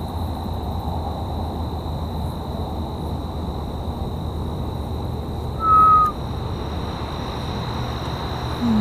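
Night-time roadside ambience: a steady high insect drone over a low rumble, with one short whistle-like note, slightly falling, about six seconds in.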